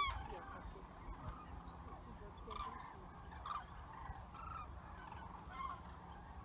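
Migrating common cranes calling, many birds at once: repeated calls scattered throughout, the loudest one right at the start.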